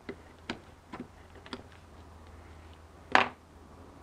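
Utility knife cutting and snapping at the lip of an old plastic shift-arm bushing: four short sharp clicks about half a second apart, then a louder clack about three seconds in.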